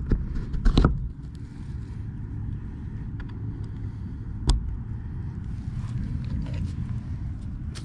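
Wind rumbling on the microphone, with a few handling knocks: a cluster just under a second in and one sharp knock about four and a half seconds in.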